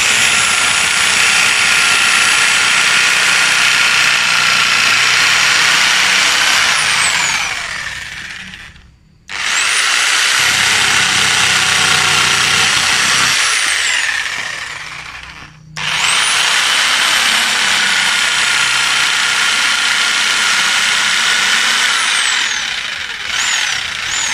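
Modern M-2200L electric jigsaw sawing through a wooden plank, with a steady high motor whine. It runs three times for several seconds each: it spins up, holds speed, then winds down and stops briefly before starting again.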